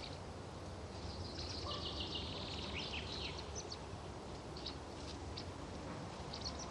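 Faint high bird chirps, busiest about two to three seconds in, over a steady low background hum.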